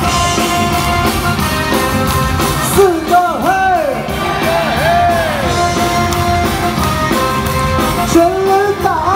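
Loud, steady cheer music with singing and some shouting, as at a baseball stadium's cheering section, with singing voices sliding up and down in pitch a few seconds in and again near the end.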